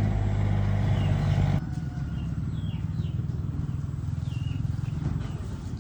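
An engine running steadily, then a sudden drop about one and a half seconds in, after which it keeps going lower and more pulsing; a few short, falling bird chirps sound over it.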